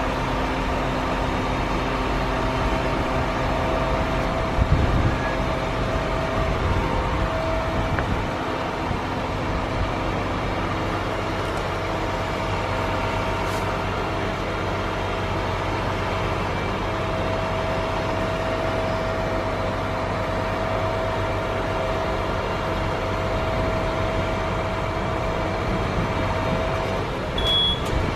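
Truck-mounted hydraulic crane on a flatbed delivery lorry lifting a bulk bag, with the lorry's engine running to power the crane: a steady mechanical drone whose tone shifts slightly in pitch a few times as the crane works.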